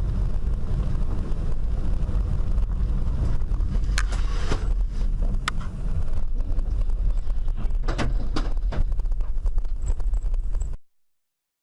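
Dashcam recording of a vehicle driving: a steady low rumble of engine and road noise inside the cab, with sharp knocks twice around the middle and a cluster of them a few seconds later.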